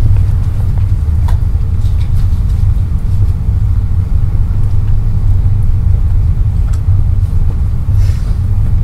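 A steady, loud low rumble, with a few faint clicks.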